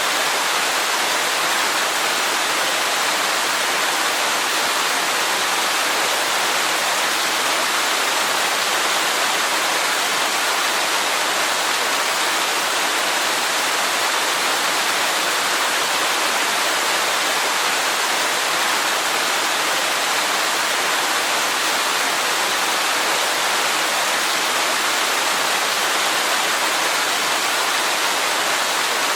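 Waterfall: a steady, unbroken rush of falling water, mostly hiss with little deep rumble.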